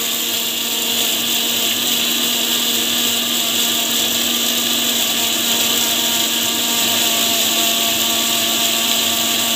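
Electric mixer grinder (Indian mixie) running steadily at full speed, grinding mint, coriander, pepper and fennel into a wet green masala paste; a constant motor hum with a high whine and the whirr of the blades through the paste.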